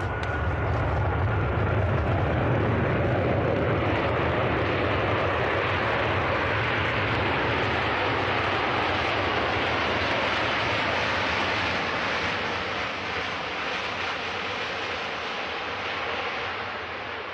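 Airbus A380's four Rolls-Royce Trent 900 turbofans making a steady rushing jet noise as the airliner rolls out just after touchdown. The noise builds over the first couple of seconds, holds, then eases off over the last few seconds.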